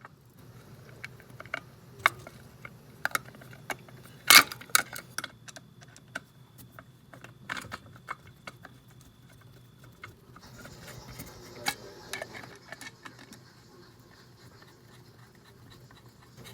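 Scattered light clicks and clatter of small parts and a hand tool being handled as a distributor rotor is fitted and screwed down, with one sharper knock about four seconds in.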